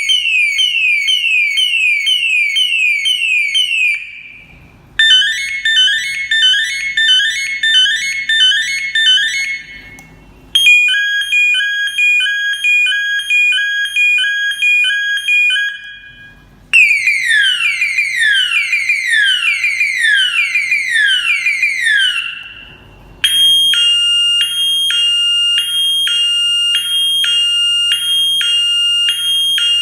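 MUCCO SNT-B712 trumpet-type electronic horn siren stepping through its melodies, each lasting about five or six seconds with a short gap between: quick repeated falling sweeps, then a warbling multi-tone pattern, then alternating steady beeps, then falling sweeps again, then a high–low two-tone alternation.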